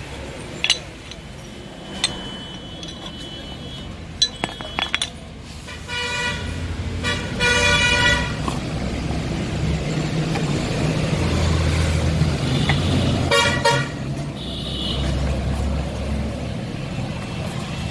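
A few sharp metallic clicks and taps, then a vehicle engine rumbling low with horns honking in short bursts several times, as in road traffic.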